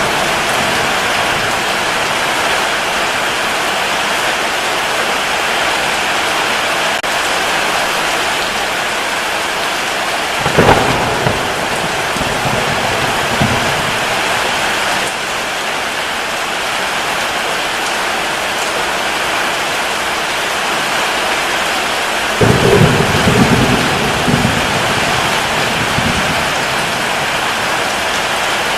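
Steady, heavy rain hissing without a break, with thunder rumbling twice: a sharp crack about ten seconds in, and a longer low rumble from about 22 seconds in that dies away over a few seconds.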